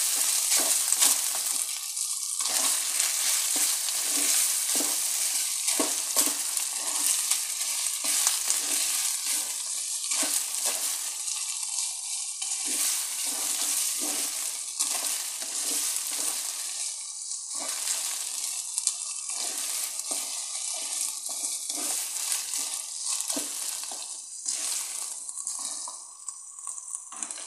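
Minced beef and tomato paste sizzling in a nonstick frying pan, stirred and scraped over and over with a wooden spatula as the paste is fried to bring out its colour. The sizzle and stirring get quieter near the end as the spatula comes to rest.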